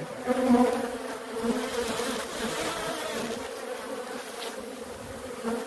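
Swarm of Africanized (killer) honey bees buzzing steadily around an opened hive, a dense continuous hum.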